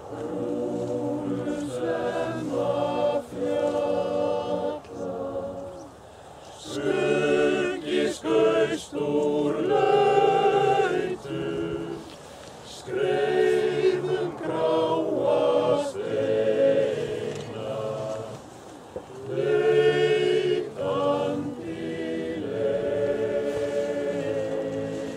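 Male voice choir singing unaccompanied in several parts, in phrases broken by short breath pauses.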